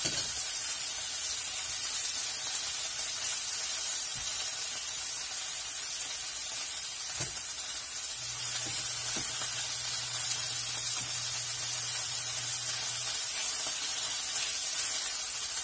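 Salmon fillets sizzling steadily in a hot non-stick frying pan, with a few faint taps of a spatula against the pan.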